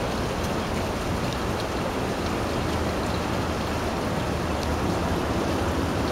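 Swimming pool water splashing and lapping as hands and small bodies move through it: a steady, even hiss of disturbed water with faint small splashes.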